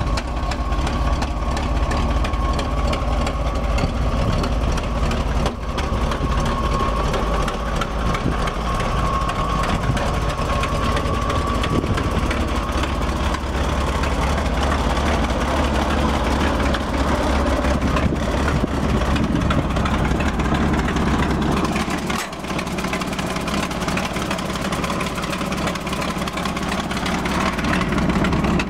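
1968 Chevrolet C70 grain truck's engine idling steadily, with a thin steady whine over it for roughly the first half. The tone of the idle shifts about two-thirds of the way through.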